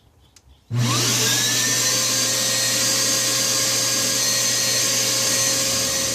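Bissell Garage Pro wall-mounted wet/dry shop vacuum switched on after a faint click: its motor whines up to speed within about half a second, then runs steadily and loud. Its level begins to ease off near the end.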